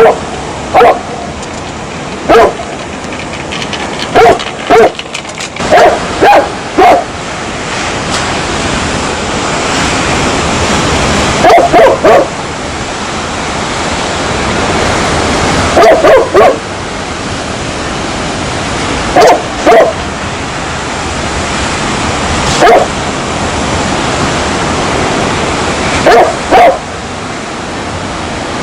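A dog barking in short single barks and quick pairs every few seconds, with a longer pause about a third of the way in. A steady hissing background noise runs underneath.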